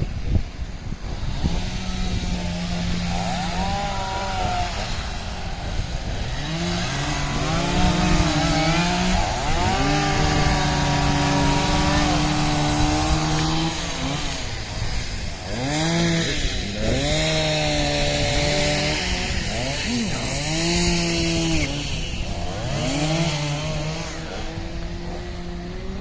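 Gasoline chainsaw running, its engine revving up and down over and over, with stretches held at a steady pitch.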